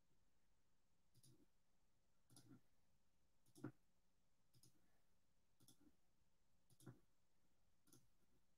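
Near silence with a handful of faint, scattered computer-mouse clicks, the clearest about three and a half seconds in.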